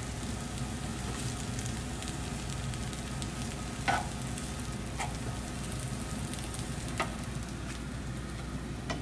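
Egg fried rice sizzling in a frying pan as it is stirred and turned with a slotted spatula. A few sharp knocks of the spatula against the pan, the loudest about four seconds in.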